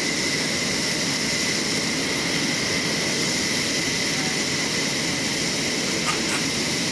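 Aircraft turbine engine running steadily on the flightline: an even rushing hiss with a constant high-pitched whine.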